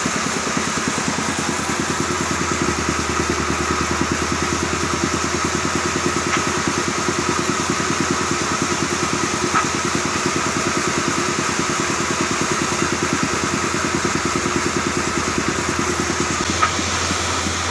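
A small engine running steadily with a rapid, even pulse, with a couple of light clicks partway through and near the end.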